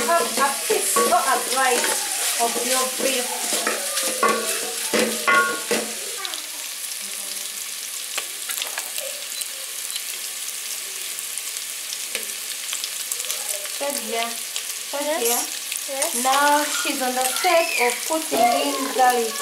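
Beef pieces frying and sizzling in an aluminium pot on a gas burner, stirred with a wooden spoon at the start. Talking is heard over it during the first six seconds and again near the end.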